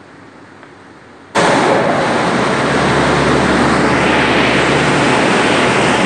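Industrial humidifier running as a steady rushing noise that jumps abruptly to a much louder, even roar about a second in, with a low hum beneath.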